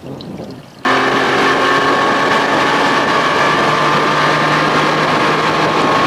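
Two-stroke Evinrude outboard, a 25 hp converted to 30-35 hp, running steadily at high speed. It cuts in abruptly about a second in, after a quiet stretch of wind noise.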